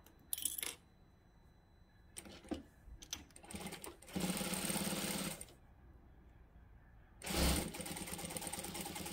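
Industrial sewing machine stitching a zipper tape onto upholstery fabric: a few short bursts of stitching, as for a backstitch at the start of the seam, then a steady run of about two seconds, a pause, and a second steady run starting about seven seconds in.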